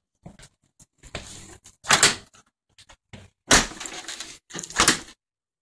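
Handling noise on the phone's microphone: a few separate rustling, knocking bursts as the phone is moved about with a finger over it.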